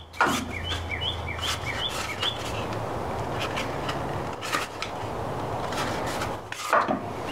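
A molded Kydex cheekrest being handled and lifted off a wooden rifle stock: a few sharp plastic clicks and some rubbing over a steady background hiss. A bird chirps in quick repeated notes during the first second or so.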